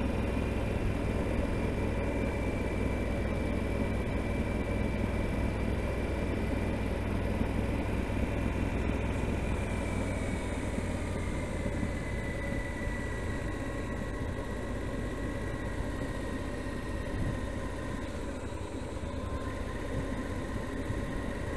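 Yamaha XT1200Z Super Ténéré motorcycle engine running at a steady cruise, with wind and road noise. A faint high whine dips a little in pitch about halfway through, and the sound eases off slightly towards the end.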